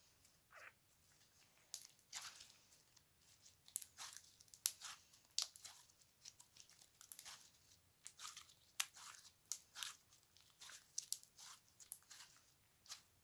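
Slime being squeezed and worked by hand, giving irregular crackling pops and clicks.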